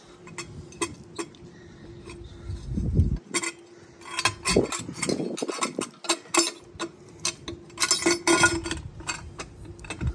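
Metal exhaust header being fitted to an ATV engine by hand: irregular clinks, taps and a few dull knocks of metal parts, with a steady hum underneath.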